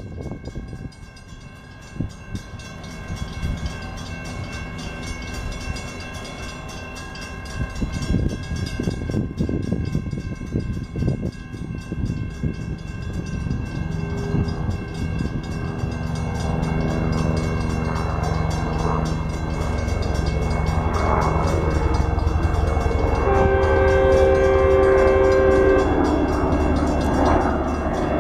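Diesel-hauled Metrolink commuter train approaching, its engine and wheels growing steadily louder. The locomotive horn sounds briefly about halfway through, then gives a louder blast of about two seconds near the end.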